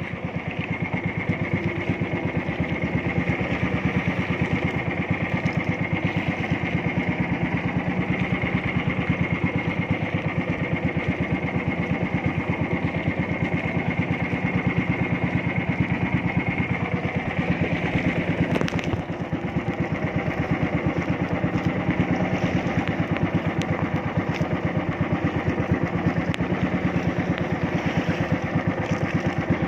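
Engine of a motorized outrigger boat running steadily while under way, with a fast, even firing beat and a thin steady whine over it until a little past halfway. Its level dips briefly about two-thirds of the way through.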